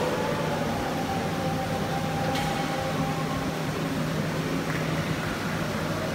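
Steady low mechanical hum, with a few faint held tones over it and one sharp click about two and a half seconds in.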